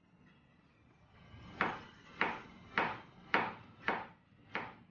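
Chef's knife chopping carrot on a plastic cutting board: six even chops about every 0.6 s, starting about a second and a half in.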